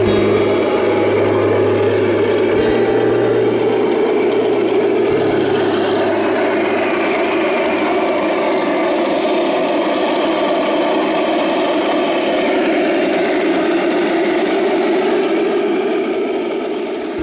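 Radio-controlled model King Tiger tank driving over sand: a steady mechanical running noise of its drive and tracks, with a low hum underneath that drops away about five or six seconds in.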